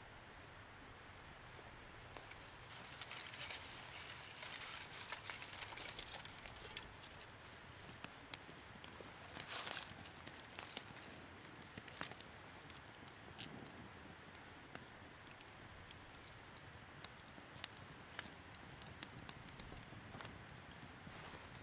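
Newly lit dry-grass tinder bundle burning with a soft rustle, then thin dry twigs laid over it and catching, with scattered sharp crackles and snaps.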